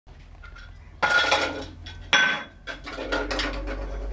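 Clattering and clinking of hard objects: two loud sharp knocks with a brief ringing tone, about a second and two seconds in, then several lighter clinks.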